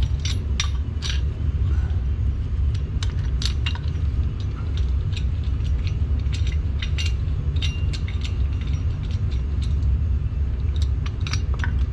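Irregular metal clicks and clinks as a brake caliper piston compressor tool and an old brake pad are fitted against the caliper, over a steady low hum.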